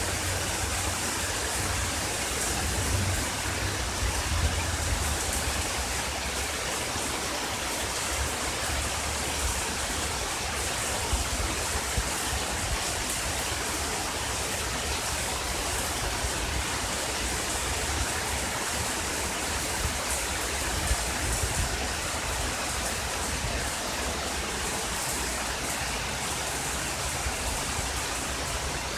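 Heavy rain falling steadily, a constant even hiss, with a low rumble underneath.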